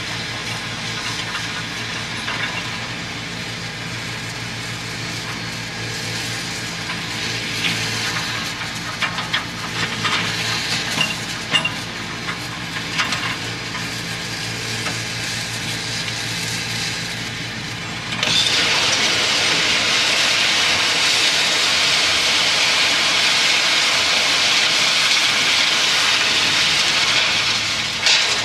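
Heavy demolition machinery's diesel engine running steadily, with scattered cracks and clatter of breaking concrete and steel. About two-thirds of the way through, a sudden loud, steady hiss takes over.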